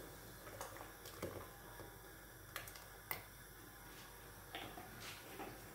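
Red palm oil poured from a plastic bottle into a pot of soup: faint soft pouring with a handful of sharp, scattered clicks and ticks from the bottle and pot.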